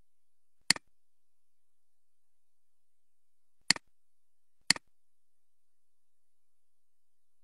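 Three sharp computer mouse clicks, each a quick press-and-release: one about a second in, then two a second apart past the middle.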